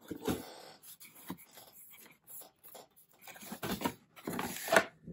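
Cardboard box flaps being pulled open and handled: irregular scraping and rustling of cardboard, with a louder scrape near the end.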